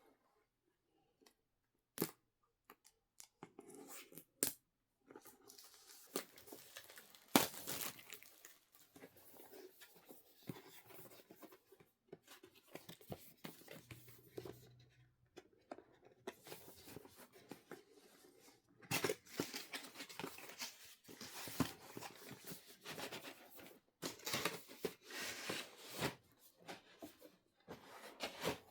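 Product packaging being torn open and handled: intermittent tearing and rustling with scattered sharp clicks, busiest in the second half.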